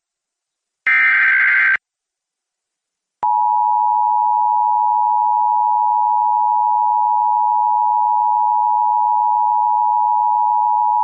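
Emergency Alert System activation: a burst of SAME header data tones lasting about a second, then, after a short gap, the EAS two-tone attention signal holding steady for about eight seconds before it cuts off abruptly. It signals the start of a Child Abduction Emergency (Amber Alert) broadcast.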